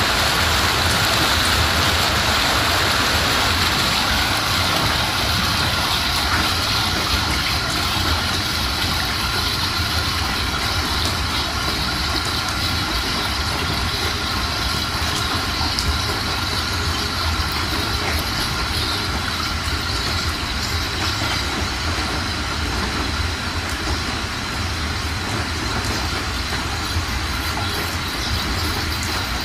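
Floodwater rushing and churning fast over the ground: a loud, steady wash of water noise with a low rumble underneath.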